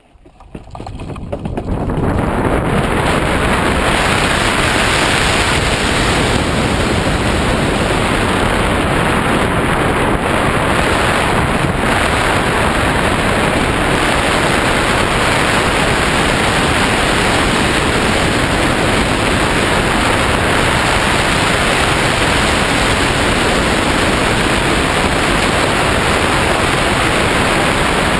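Loud, steady rush of wind on a camera mounted on a hang glider's wing in flight, swelling over the first two seconds and then holding even.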